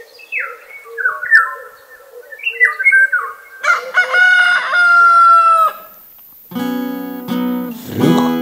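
Birds calling with short stepped, falling calls, then a rooster crowing once, a long crow with a held final note, from about three and a half seconds in. Acoustic guitar music starts about two seconds after the crow ends.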